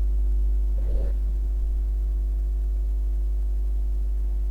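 Steady low electrical mains hum with a brief soft knock about a second in.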